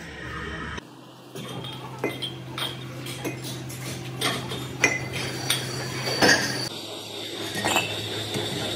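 Metal engine cylinder sleeves clinking and knocking against one another as they are handled and stacked, in many short irregular strikes. A low steady hum runs underneath.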